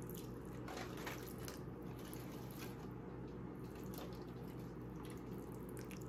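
Faint trickling and dripping of seasoning liquid (slow-cooker seasoning mix stirred into water) poured from a measuring cup over a beef roast.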